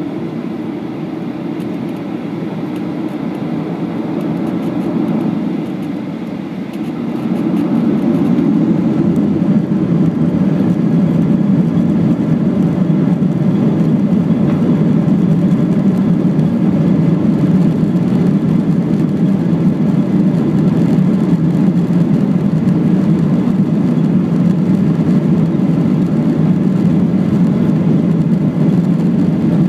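Jet airliner engines heard from inside the cabin over the wing: a steady rumble that swells about seven seconds in and then holds loud and even, as the engines spool up for the takeoff run.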